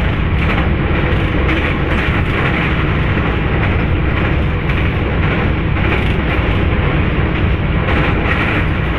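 Train running at speed heard from inside the locomotive cab while crossing a steel truss bridge: a loud, steady rumble with a repeated clatter of the wheels.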